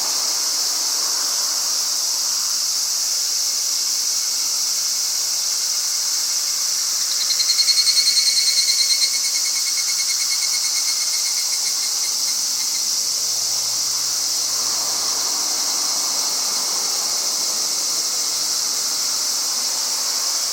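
Higurashi (evening cicadas) singing: a steady, shrill, high cicada chorus. From about seven seconds in, one closer call rises over it as a rapid pulsing trill that grows louder and then fades away over about three seconds.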